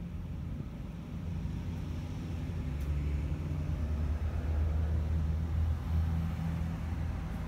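Low mechanical hum and rumble, growing louder about two and a half seconds in and easing near the end.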